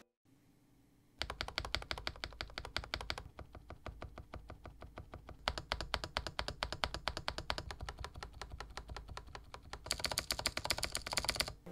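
Rapid typing on a Groovestone GS104 mechanical keyboard: a dense run of key clicks that starts about a second in. Around the middle the keys are fitted with Neoul (Swell) switches, and near the end with blue switches, whose clatter is brighter and sharper.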